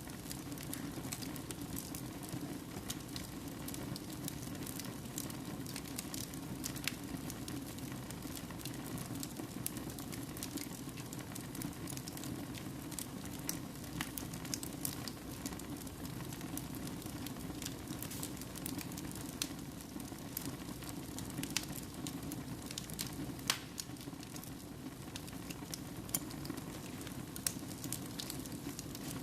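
Wood fire burning in a fireplace: a steady low rush of flames with frequent sharp crackles and pops from the burning logs.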